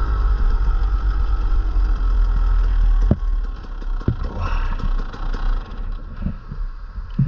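Motocross bike engine running under steady throttle, heard from on the bike, then backing off about three seconds in to a quieter, lower note. Knocks and rattles from the bike over the rutted dirt follow.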